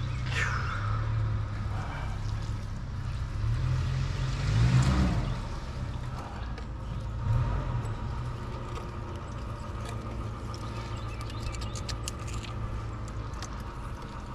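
A motor running steadily with a low hum, swelling and rising in pitch briefly about five seconds in, with scattered light clicks and knocks near the end.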